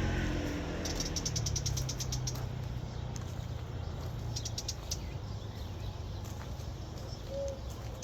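Small birds chirping in quick bursts, twice, over a steady low rumble.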